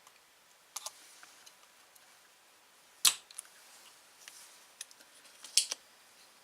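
Spring-loaded solder sucker (desoldering pump) being cocked and fired: sharp clicks, the loudest about three seconds in and a strong double click near the end, with lighter taps between.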